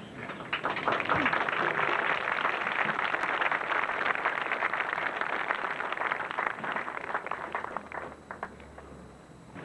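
A large outdoor crowd applauding. The clapping starts suddenly about half a second in, holds steady, then dies away with a few last claps near the end.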